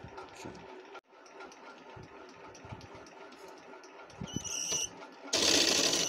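Sewing machine stitching in a short, fast, loud burst near the end, with a brief high tone shortly before it; before that only faint background noise.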